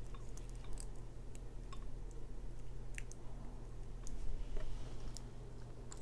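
Scattered light metallic clicks and ticks, a few a second, from a Mul-T-Lock E-series pin-in-pin brass cylinder core being worked by hand with its key while it is turned back to the locked position.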